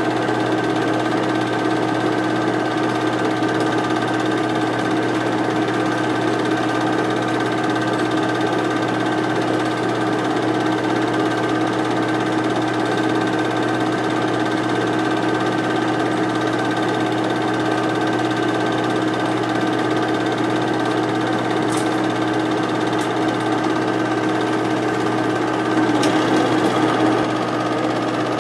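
8mm film projector running steadily, a constant mechanical whir and clatter. Near the end it gets briefly louder and its pitch dips for about a second.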